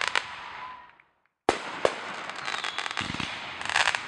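Aerial fireworks: a crackling, hissing shower dies away about a second in. After a brief silence a new burst starts with a sharp crack, then crackling and hissing with a few sharp pops and a low thud, loudest near the end.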